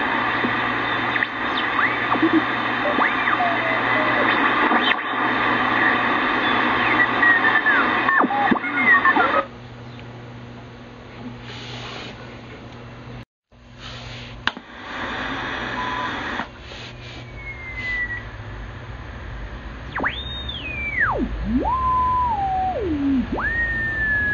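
Kentec BCL-1 shortwave communications receiver being tuned across a band, its speaker giving out static and hiss with whistling tones that glide up and down in pitch as stations are passed. About nine seconds in the hiss drops and turns quieter, with a brief cut-out a few seconds later. Near the end several whistles slide downward in pitch.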